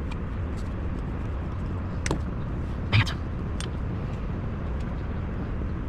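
A few small clicks and taps from handling a tiny rubber tire and plastic rim of a 1:24 scale RC wheel, the sharpest about three seconds in, over a steady low background rumble.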